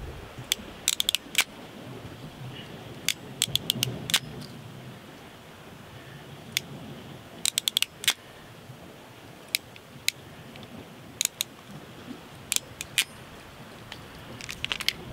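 Electrical crimping pliers squeezing metal crimp sleeves onto a wire fishing trace: clusters of sharp metallic clicks every second or two, over a low steady hiss of wind.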